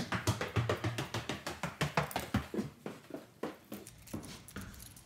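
Quick footsteps going down a wooden staircase: a rapid run of knocks that thins out after about three seconds.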